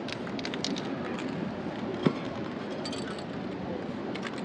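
Busy street background with scattered light clicks and clinks, and one sharp knock about two seconds in.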